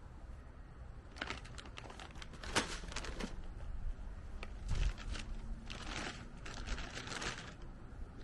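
Irregular scratchy rustling and crinkling in short bursts, with a few sharp clicks, from hands at work planting seedlings.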